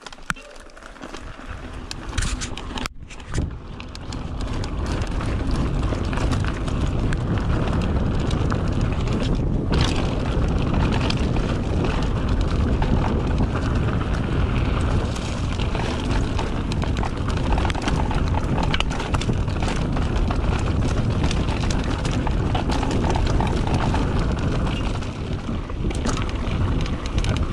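Riding a mountain bike along a dirt trail: wind rushing over the camera microphone, with rattles and knocks from the bike on the rough ground. It builds over the first few seconds as the bike picks up speed, then holds a steady rush.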